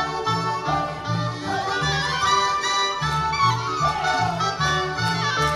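Lively Polish folk dance music from the Rzeszów region played by a folk band, with a steady bass beat under the melody.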